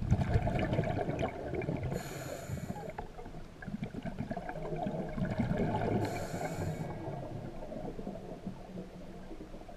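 Scuba diver breathing through a regulator underwater: exhaled bubbles bubbling and gurgling, broken by two short hissing inhalations about two and six seconds in.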